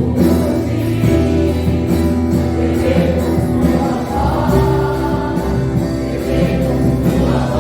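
Gospel worship music: a band with a steady bass and a group of voices singing.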